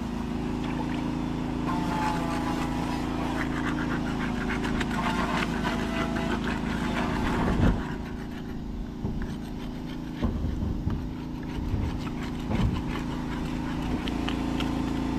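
Hand scraping and rubbing on the boat's wooden hull as it is cleaned for puttying, with a few knocks. A steady engine drone runs underneath.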